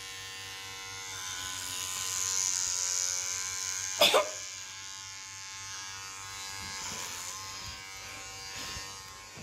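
Electric hair clipper buzzing steadily as it is run through long hair, getting louder and hissier for a second or so about two seconds in. A single sharp click about four seconds in.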